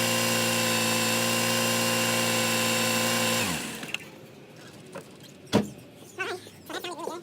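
2002 Subaru Forester's non-turbo EJ flat-four engine idling steadily, then switched off about three and a half seconds in and spinning down, after being run briefly to circulate fresh oil during an oil change. A sharp click follows a couple of seconds later.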